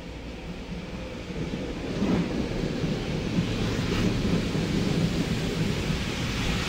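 Metro-North commuter train passing the platform at speed, its rumble swelling about two seconds in and staying loud.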